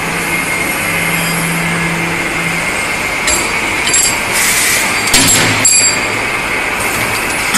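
Automatic metal cutting and chamfering machine running: a steady high whine over machine noise, with a low motor hum for the first few seconds. Several sharp metallic clinks and knocks come in the middle.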